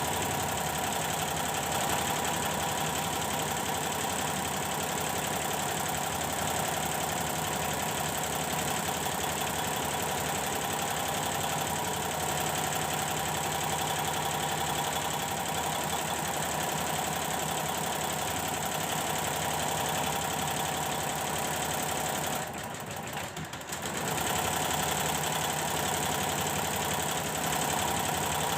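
Computerized embroidery machine stitching at a steady, rapid pace, running normally after the power supply in its drive unit was repaired. It briefly goes quieter for about a second and a half near the end, then resumes.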